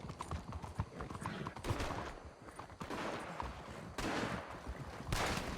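Video game gunfight: repeated gunshots in volleys, with crackling impacts between them.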